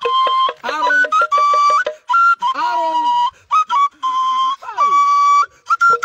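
A high, flute-like melody of held notes stepping between a few pitches. About a second in it runs over a quick run of wooden taps, and twice a note slides steeply down in pitch.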